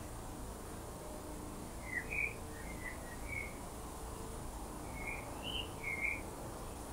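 Short bird chirps in two small groups, one about two seconds in and another about five to six seconds in, over a steady low background noise.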